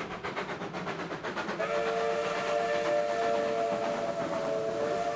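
Steam locomotive working, its exhaust beating rapidly and evenly. From about a second and a half in, a multi-note chime whistle is held for about three and a half seconds.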